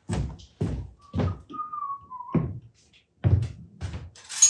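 A person whistling a few wavering notes for about a second and a half, amid a steady run of short knocks and thuds about every half second. Near the end comes the loudest sound, a sharp hit with a brief high ring.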